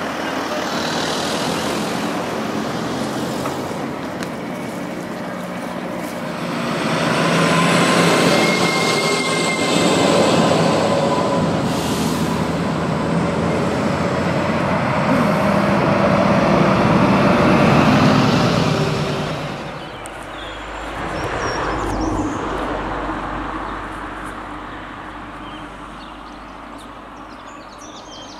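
Motor vehicles driving past on the road one after another. The noise swells from about six seconds in, stays loud, drops off after about twenty seconds, rises briefly once more and then fades away.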